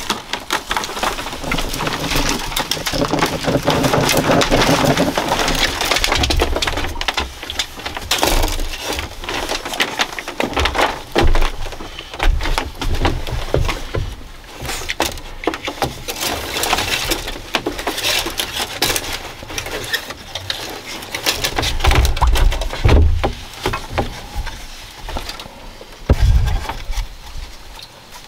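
Thin bamboo strips rustling and clicking against one another as they are woven by hand into a flat mat, with a few dull knocks in the second half.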